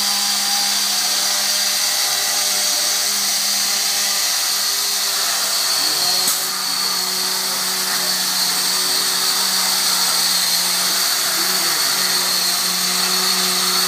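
A FIRST Robotics competition robot's electric rope-climber winch running, a steady motor-and-gearbox whine as it winds the rope onto its spool and hauls the robot up off the floor.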